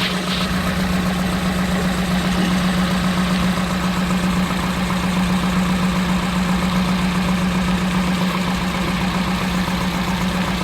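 Daihatsu 1.3-litre 16-valve four-cylinder engine of a Piaggio Porter / Hijet mini truck idling really rough, with a steady hum over an uneven low rumble. This is a misfire on cylinder number 4, which the owner suspects comes from a badly repaired ignition wire.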